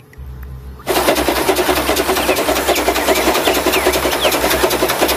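A steam locomotive running along the track with its carriages, cutting in suddenly about a second in as a dense, steady noise.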